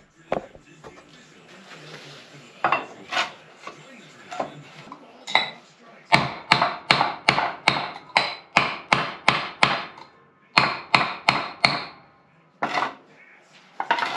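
Hammer strikes in a transfer case rebuild: a few separate knocks, then a quick, even run of blows at about three a second, and after a short pause a brief burst of four more.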